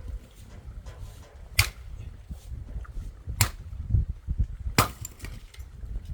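Firewood being split with an axe: three sharp cracks about a second and a half apart, over low wind rumble.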